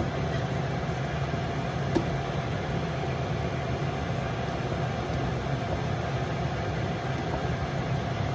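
Steady low machine drone with a single sharp click about two seconds in.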